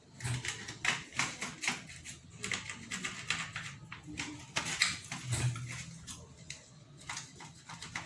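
Irregular light clicks and taps of small parts being handled and marked by hand, ahead of piercing them.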